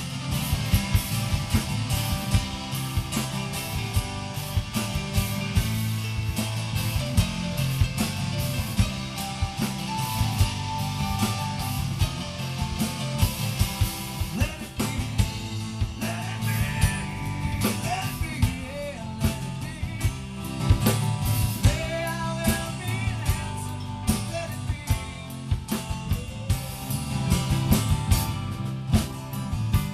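Small live rock band playing: drum kit, guitar and keyboard, with singing joining in from about halfway through.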